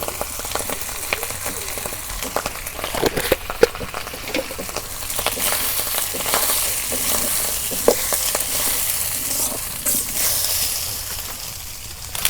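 Drained basmati rice frying in hot soybean oil in a kadai, sizzling steadily, with scattered knocks and scrapes of the spoon stirring it against the pan.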